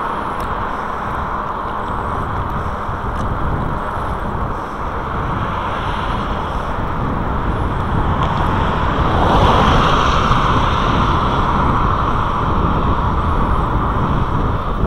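Wind rushing over a moving camera's microphone, mixed with road traffic noise; the noise swells for a couple of seconds about nine seconds in, as a vehicle goes by.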